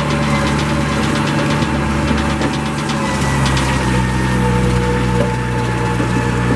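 Engine running steadily during a tow start of an International Harvester 350 Utility tractor pulled on a chain, its sound changing about three seconds in.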